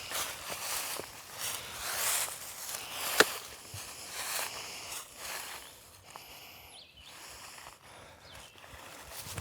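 Footsteps with rustling underfoot, as someone walks over the ground of a wooded course, with one sharp click about three seconds in. The steps grow quieter in the second half.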